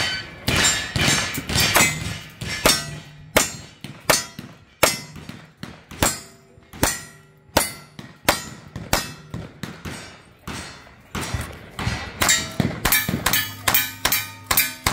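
Revolver shots fired one after another at steel targets, each hit ringing the steel, about one shot every 0.7 s. From about twelve seconds in, a rifle takes over, with faster shots about three a second and the steel ringing after each.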